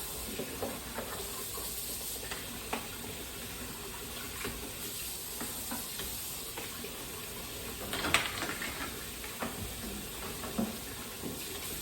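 Kitchen tap running steadily while dishes are rinsed, with light clinks of dishes and a louder clatter about eight seconds in.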